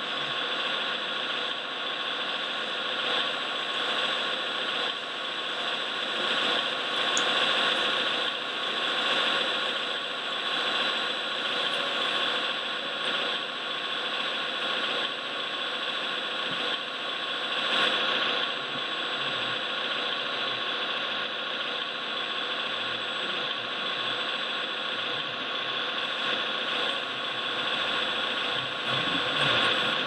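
Steady mechanical whirring of radio-controlled model construction machines and a model timber truck working, with a thin high whine above it.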